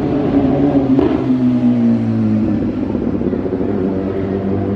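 City street traffic: car engines running as vehicles drive past, with a steady pitched engine drone over the street noise.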